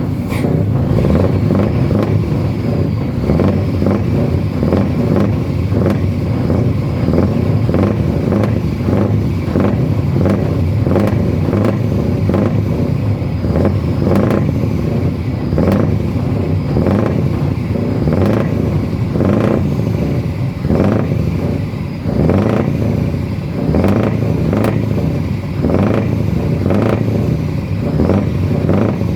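Heavy truck engine running loudly and steadily, with a regular pulsing beat throughout.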